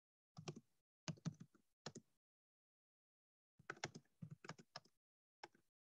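Typing on a computer keyboard: short runs of keystrokes in about four bursts, with silent gaps between.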